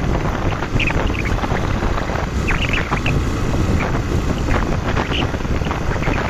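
Wind buffeting the microphone of a rider on the move on a motorcycle, with road and engine noise underneath, steady throughout.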